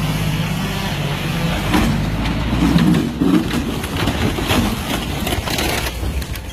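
Heavy engine running steadily, with a scatter of knocks and cracking sounds over it.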